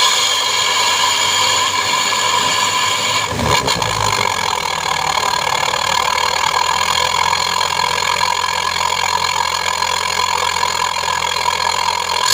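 Engine idling steadily through a bolt-on aftermarket 'sos' exhaust muffler tuned for a low snoring ('ngorok') note.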